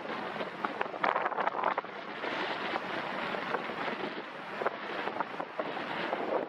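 Wind rushing over the microphone, a steady hiss broken by frequent crackling buffets.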